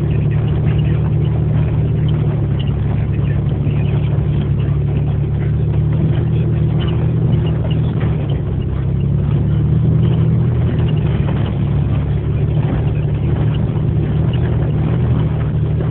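A motor vehicle's engine running steadily at a constant speed, with scattered small crackles over it.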